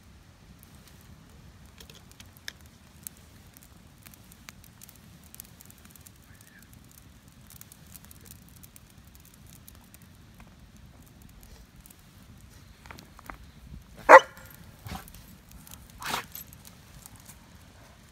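A dog barks once, sharp and loud, about fourteen seconds in, with a couple of fainter sounds following. Before that there is only a low, steady background with scattered small clicks.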